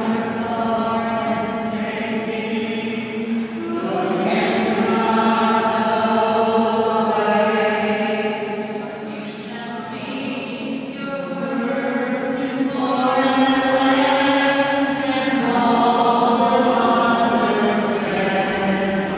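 A group of voices singing a slow hymn in unison: long-held notes in phrases a few seconds long, with short breaks between them.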